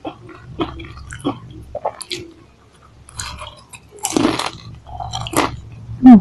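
Close-miked crunching and chewing of Pringles potato chips, with a larger crunching bite about four seconds in. Near the end comes a short, loud vocal sound falling in pitch.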